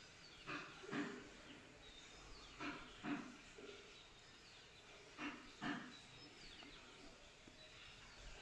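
Metal spatula stirring and scraping chana dal against the side of an aluminium pressure cooker, in pairs of short strokes every two to three seconds. Faint bird chirps sound in the background.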